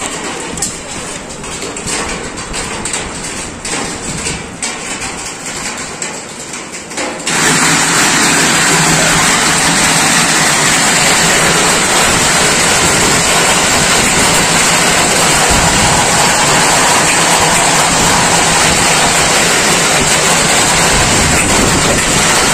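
Hailstorm: hailstones pelting down in a rapid patter of separate hits. About seven seconds in it changes abruptly to a loud, steady roar of heavy hail and rain.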